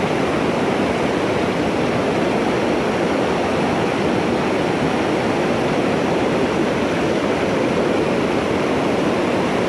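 Steady rush of creek water spilling over a low-head dam and running through shallow rocky riffles.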